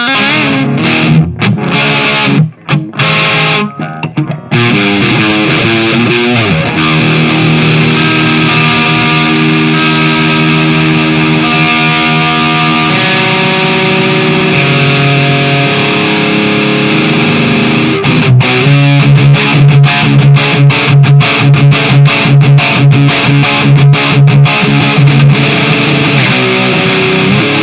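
Kramer Baretta Special electric guitar played through an amp on a crunch tone with the volume turned fully up. It opens with short choppy chords, moves to long ringing chords, and from about two-thirds of the way in switches to fast rhythmic chugging.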